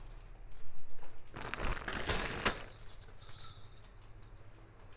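Gold-plated bangles clinking and jingling against one another as they are handled, in a few bursts in the first three seconds or so.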